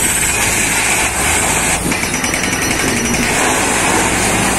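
Truck-mounted borewell drilling rig drilling: engine and air compressor running loud and steady while the drill string turns, with a fast, even hammering clatter from the bit.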